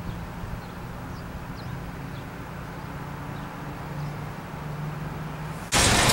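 Street traffic heard as a steady low engine hum, with a few faint bird chirps. Near the end the sound jumps suddenly to much louder, hissing street traffic noise.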